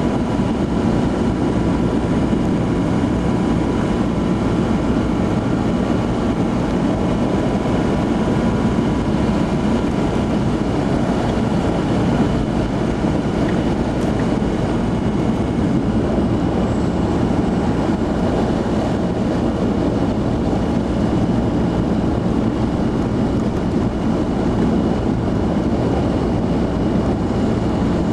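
Steady engine and tyre noise of a vehicle driving along a snow-covered road, heard from inside the cab.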